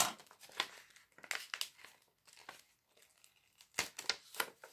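A paper envelope cut open with scissors and handled: a sharp snip right at the start, then short bursts of paper rustling and crinkling, with a cluster of them near the end as it is pulled open.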